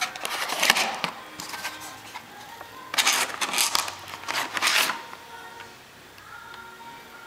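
Cardboard phone box being opened and handled: a burst of scraping and rustling in the first second as the lid comes up, then a longer burst about three seconds in as the phone is pulled out of its plastic tray. Faint background music underneath.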